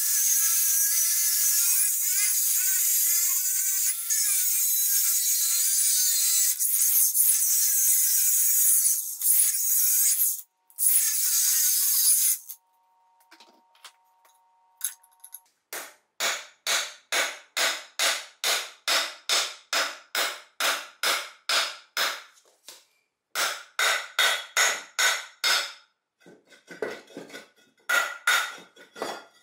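Cordless angle grinder cutting into a cast-iron stand, a steady high-pitched grind for about twelve seconds that then stops. After a short pause, rhythmic back-and-forth sawing strokes on the metal, about two to three a second, in three runs.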